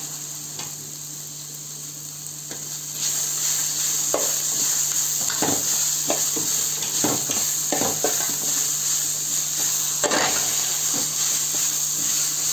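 Spinach, onions and green chillies sizzling in hot oil in a metal pot while a metal slotted spatula stirs them, scraping and knocking against the pot. The sizzle gets louder about three seconds in.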